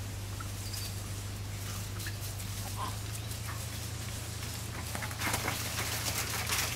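A few faint short chirps over a steady low hum. From about five seconds in, louder crackling footsteps through dry leaf litter.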